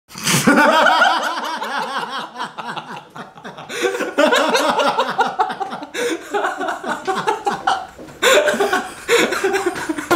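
Two men laughing hard together in several waves of laughter.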